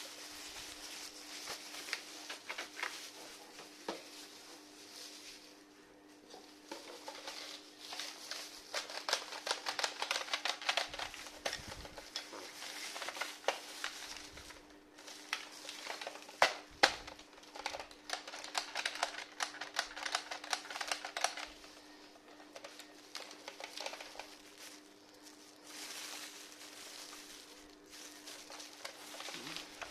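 Small hard objects being handled: irregular clicks, taps and rattles with bouts of rustling, busiest in the middle stretch, over a faint steady hum.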